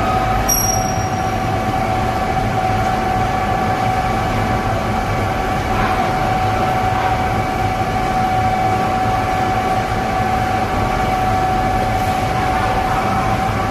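Airport baggage conveyor belt running: steady machine noise with a constant whine over it.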